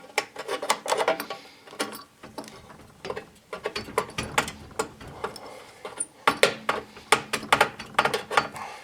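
Irregular metallic clicks and clinks of pliers working a spring clamp off a small-engine carburetor's fuel line, busiest near the start and again in the second half.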